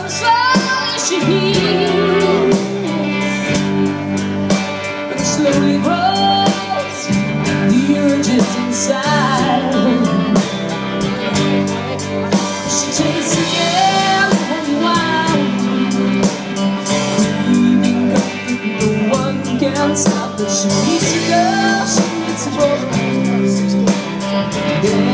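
Live band playing: electric guitars over a steady beat, with a woman singing a melodic line at times.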